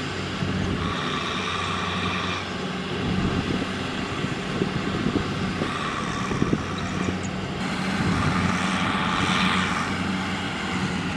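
Kubota M6040SU tractor's diesel engine running steadily under load while the tractor is stuck in deep mud with a loaded rice trailer, swelling louder with a rush of noise about a second in and again around eight seconds in.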